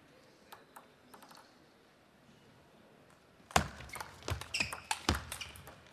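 Table tennis rally: a celluloid table tennis ball clicking sharply off bats and table in quick succession, starting about three and a half seconds in after a few faint taps.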